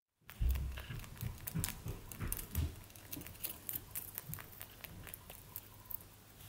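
Baby rabbit chewing dry hay close to the microphone: rapid, irregular crunching and clicking, with a few low thumps in the first three seconds.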